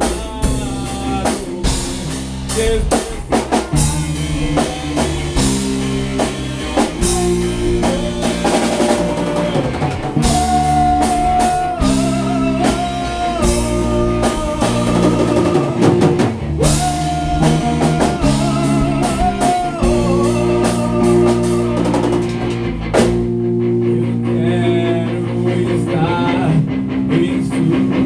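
Instrumental rock passage: drum kit, bass and guitars with a melodic lead guitar line sliding between notes over the chords. Near the end the drums and bass drop out, leaving guitar alone.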